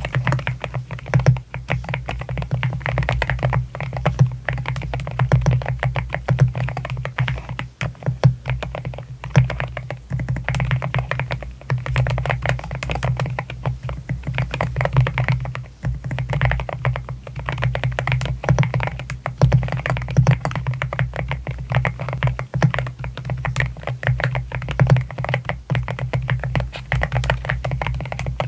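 Typing on an AKKO MU01 mechanical keyboard with a wooden case and Rosewood linear switches: rapid keystrokes that go on without a break.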